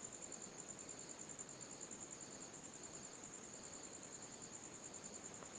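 Insects trilling faintly and steadily, a high-pitched drone with a softer pulse repeating about twice a second.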